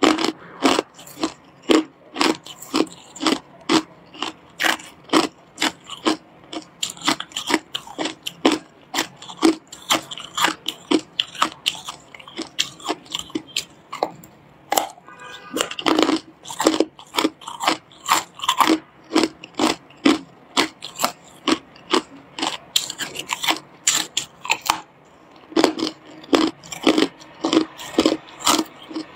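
Hard clear ice being bitten off and crunched between the teeth: an irregular run of sharp, crackly crunches, a few each second.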